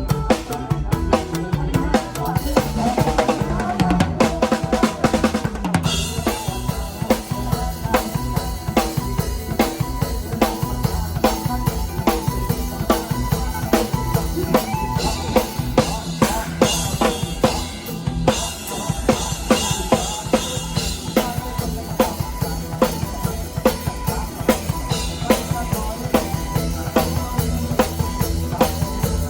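Isan lam toei music with a drum kit keeping a steady, driving beat of kick and snare.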